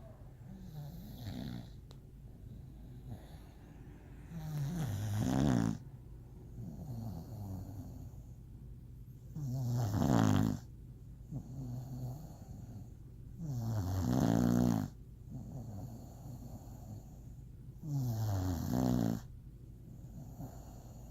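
English bulldog snoring: four loud snores about four seconds apart, each about a second long, with quieter breaths between them.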